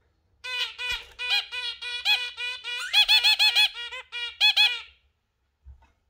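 Zebra finch calling: a rapid run of short, repeated pitched notes, about four or five a second, lasting some four and a half seconds and loudest toward the middle and again near the end.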